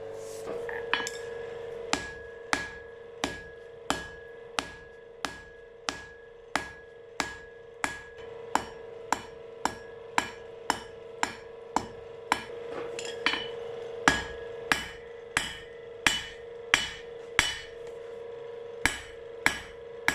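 Hand hammer forging a red-hot steel bar to a point on an anvil, in steady blows about one and a half a second, louder from about two-thirds in. The anvil is damped by a spring tied to a ring, which makes it much quieter; a steady ring hangs between the blows.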